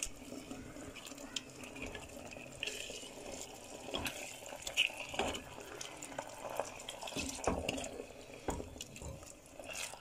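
A spatula stirring minced beef with blended tomatoes and yogurt in a pot: wet stirring with irregular light knocks of the spatula against the pot.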